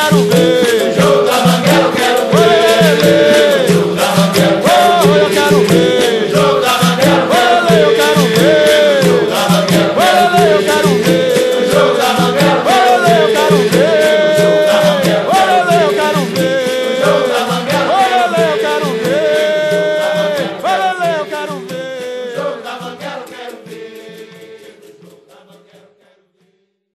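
Capoeira music: berimbaus with caxixi rattles over a steady beat, fading out over the last several seconds as the song ends.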